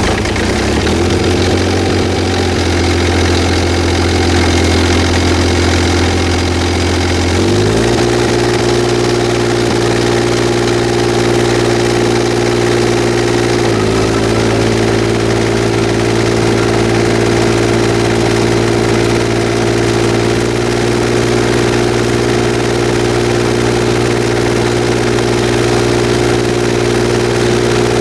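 Mahindra eMax 22 compact tractor's diesel engine running just after starting. It idles at first, is stepped up in speed about a quarter of the way in and again about halfway through, then runs steadily at the higher speed.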